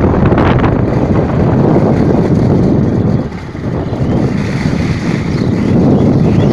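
Heavy rain in a strong wind, the gusts buffeting the microphone in a loud, dense rush that eases briefly a little over three seconds in.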